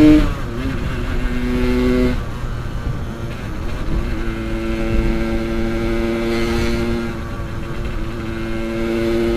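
Yamaha RX-King two-stroke single-cylinder motorcycle engine while riding: the throttle comes off at the start and the note drops, a lower note runs briefly and falls away about two seconds in, then from about four seconds the engine holds a steady pitch at cruising speed, with road and wind noise beneath.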